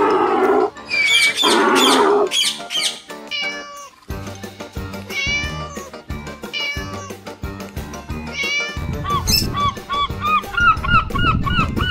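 Repeated high, gliding animal calls over background music, with a low pulsing beat in the middle part and quick chirps near the end.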